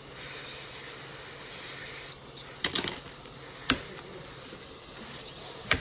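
Heat gun blowing steadily with a low hum while it softens the plastic rivets that hold a laptop keyboard plate. Three sharp clicks come through it, about a second apart near the middle and one near the end.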